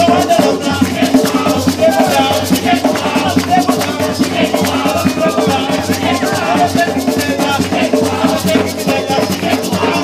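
Gwoka music: a shaker rattling in a steady fast rhythm over hand drums, with voices singing.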